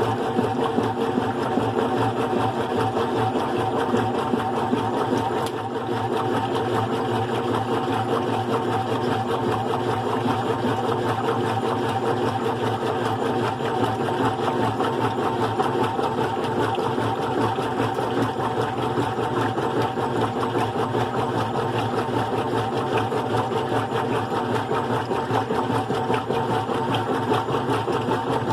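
GE Profile top-load washing machine, fitted with a single-speed motor and agitator, running steadily mid-cycle with a constant motor hum.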